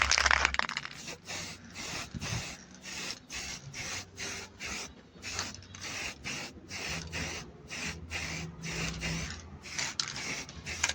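Repeated brush strokes rubbing over part of a washing machine motor, about two strokes a second, in an even rhythm.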